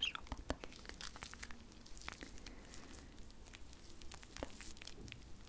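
ASMR hand sounds close to the microphone: hands rubbing and working together, giving a run of small irregular crackles and clicks.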